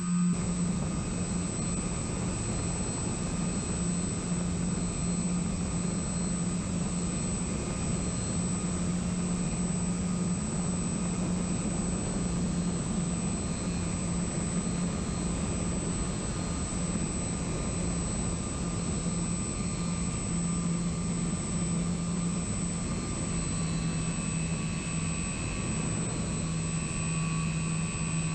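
Electric motor and propeller of a radio-controlled FPV plane in flight: a steady hum under a constant rush of wind.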